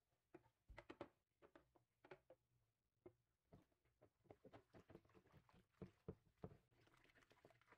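Faint splashing and sloshing of soapy water as a metal scale pan is handled and scrubbed with a sponge in a sink, in a run of short irregular splashes and rubs.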